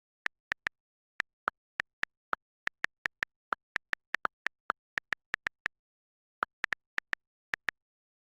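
A run of short, sharp clicks at a quick, uneven pace, each one a thin, fairly high tick over otherwise dead silence, with a brief pause a little past the middle.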